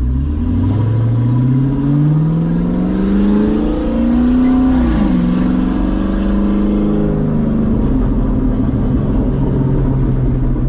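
Straight-piped 6.0 L LS2 V8 of a C6 Corvette, heard from inside the cabin. It pulls hard with its pitch climbing, drops in pitch at an upshift about five seconds in, then settles to a lower, steady pitch as it eases into a cruise.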